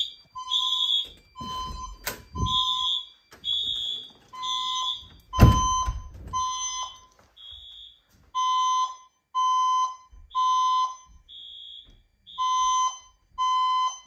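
Fire alarm speakers sounding their alert tone between spoken evacuation messages: short high beeps about once a second, settling into groups of three with a pause between groups. A few knocks about 2 and 5 seconds in, the loudest near 5 seconds.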